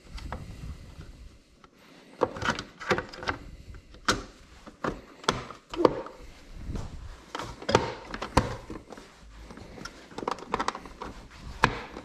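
Hard plastic trolling-motor housing and quick-release bracket being handled and pressed together. Irregular clicks and knocks as the parts are lined up and clipped into place.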